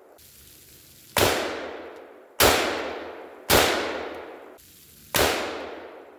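Four shots from a KelTec BPD bullpup rifle in 5.56 fired one at a time at an uneven pace, each sharp crack trailing off in an echo that fades over about a second. They are the last shots of the first magazine.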